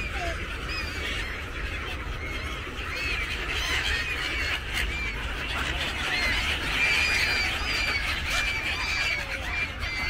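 A large flock of gulls calling, many short overlapping cries that grow denser from about three seconds in, over a low steady rumble.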